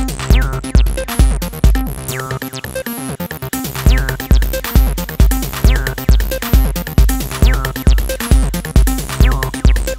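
Electronic dance music built from RB-338 drum machine and synth sounds: a steady kick drum about twice a second with repeated falling synth sweeps. The kick drops out for a moment about two seconds in, then comes back.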